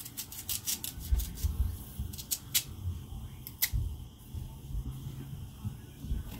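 A kitchen knife cutting through raw carrots, a quick series of short sharp clicks with a few dull low thumps between them.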